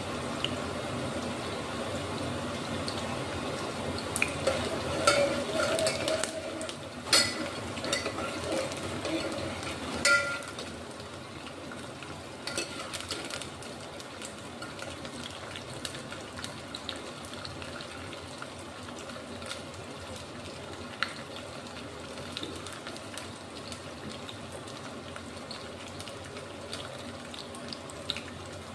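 Food sizzling in a cooking pan, with a spoon clinking and scraping against the pan through the first ten seconds or so, then a steady, quieter sizzle.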